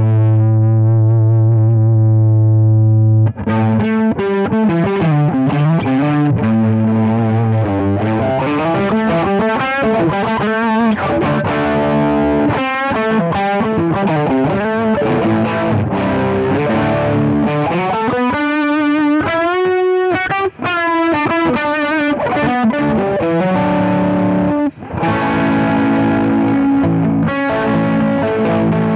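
Electric guitar played through an iSet Hot Distortion pedal, a thick, saturated gain distortion. A distorted chord rings for about three seconds, then riffing and lead lines follow, with bent, wavering notes about two-thirds of the way through.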